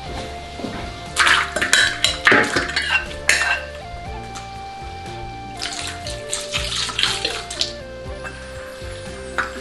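Chopped pork rib pieces tipped from a bowl into an iron wok, a loud run of clattering knocks about a second in, then a second, softer run of clatter about six seconds in as ginger slices and a knotted scallion go in. Gentle instrumental music plays throughout.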